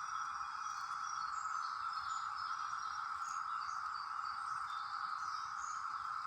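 Brood X periodical cicadas in a steady, droning chorus, with short, faint high chirps scattered over it.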